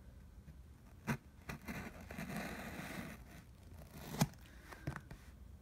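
Cutting and scraping at the tape of a cardboard mailer box with a knife: a stretch of scraping and rustling, with a few sharp knocks on the cardboard, the loudest about four seconds in.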